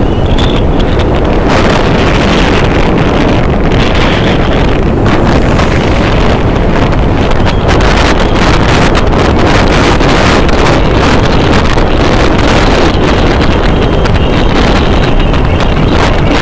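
Loud, steady wind buffeting the microphone of a vehicle moving along a road, with engine and road noise underneath.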